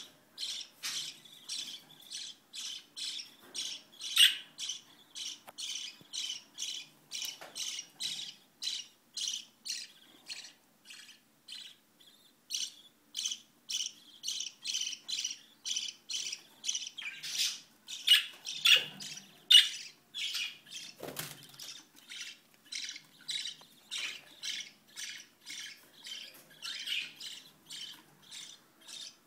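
Lovebirds giving a rapid, unbroken series of short, high-pitched squawking chirps, about three a second, with a few louder calls now and then.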